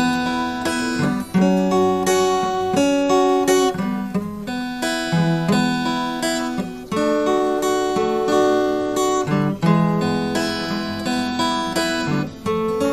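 Acoustic guitar being strummed and picked, playing a run of chords with a new strum about every second.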